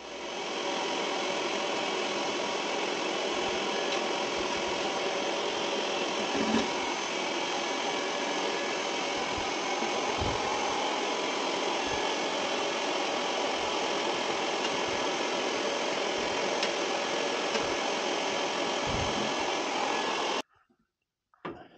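Vacuum cleaner running steadily as its hose and brush attachment suck soot out of an oil boiler, with a few faint knocks of the nozzle against the boiler. It cuts off suddenly near the end.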